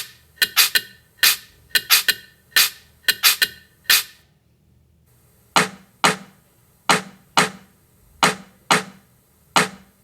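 A rhythmic series of short, sharp pops laid out as a reggaeton-style beat: a quick run of pops, a pause of about a second near the middle, then pops about every half second.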